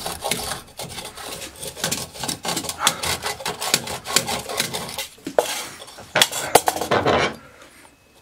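Hand rasp worked in quick back-and-forth strokes across a thin strip of wood clamped in a bench vise, rounding it into a small dowel, with a few sharper knocks near the end. The rasping stops about seven seconds in.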